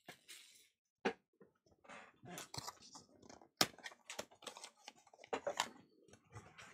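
Cardboard trading-card box being handled and opened by hand: irregular clicks, scrapes and rustles of card stock under the fingers.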